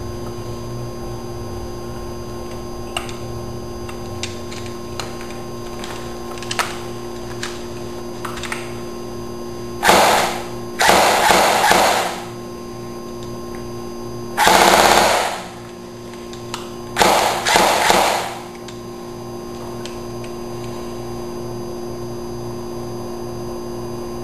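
Classic Army M15 airsoft electric gun firing on full auto, its gearbox cycling rapidly: four short bursts about ten, eleven, fifteen and seventeen seconds in, after a few light clicks of handling.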